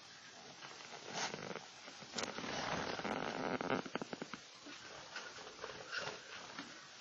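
Pet budgerigars chirping and chattering softly, with rustling and a run of light clicks around the middle.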